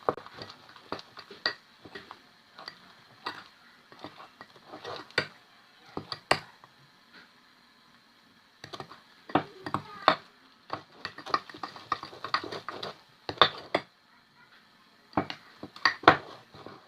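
A spoon stirring thick cake batter in a mug, with irregular clicks and knocks as it strikes the mug's sides.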